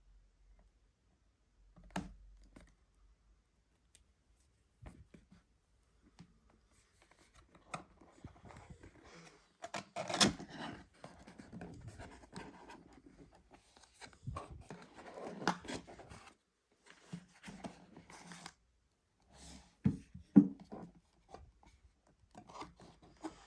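Packaging being handled and opened by hand: intermittent scraping and rustling with scattered clicks and knocks, loudest about ten seconds in and again about twenty seconds in.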